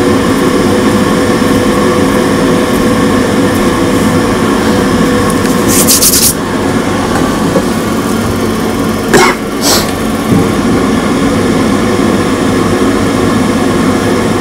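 Glow-worm gas boiler running during a start-up attempt, its fan giving a loud, steady hum. There is a brief hiss about six seconds in and two short clicks a few seconds later.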